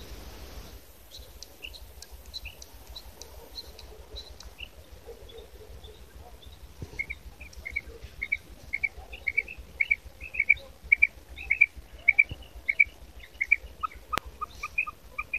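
Female quail calling: a series of short, sharp chirping notes, sparse at first, then a faster, louder run at about two notes a second, with a lower series of notes joining near the end.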